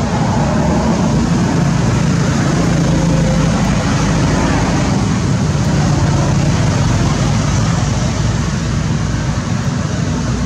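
Steady engine and traffic noise: a continuous low hum under an even hiss, unchanging throughout.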